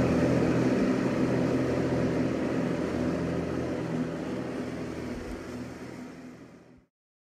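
Kubota G6200H diesel lawn tractor running steadily while mowing tall grass. The sound fades gradually and then cuts off abruptly near the end.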